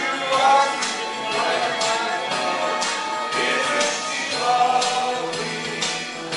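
Small amateur pop choir of men and women singing together over an accompaniment with a steady percussive beat.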